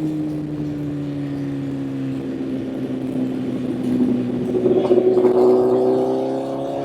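Honda CBR1000's inline-four engine on the move. Its revs fall steadily as the bike slows, then climb again as it accelerates from about four and a half seconds in, with road and wind rush underneath.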